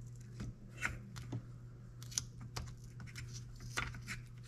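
Light, irregular clicks and clinks of metal parts being handled as an exhaust power valve assembly is worked loose from an Arctic Cat 700 two-stroke snowmobile engine, over a steady low hum.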